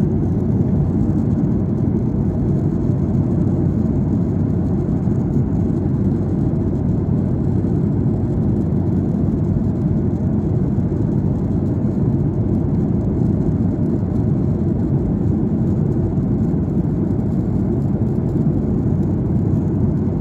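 Steady low rumble of airplane cabin noise, engines and rushing air, heard from inside the passenger cabin as the plane descends.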